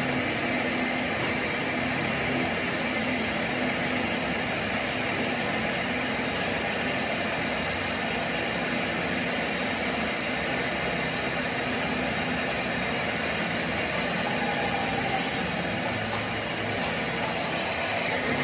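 Workshop machinery running steadily with a low hum, faint high ticks about once a second, and a louder hissing scrape about fourteen seconds in.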